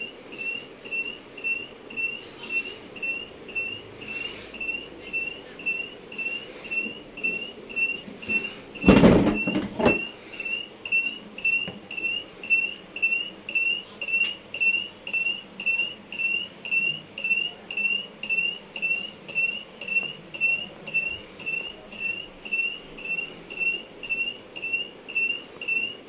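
Livpure Touch RO water purifier sounding its fault alarm: short, identical high-pitched electronic beeps repeating a little under twice a second without a break, the beeping fault that the uploader puts down to a UV lamp and UV adapter problem. A loud knock of handling sounds once, about nine seconds in.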